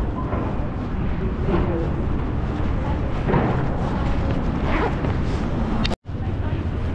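City street ambience: a steady low rumble of traffic noise with scattered fainter sounds. The sound cuts out for an instant about six seconds in.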